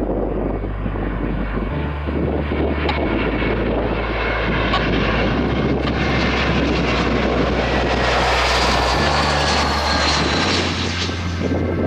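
Airbus A320-family airliner on landing approach with gear down, its twin turbofan engines giving a steady loud rush as it passes close by. In the second half a thin engine whine slides down in pitch.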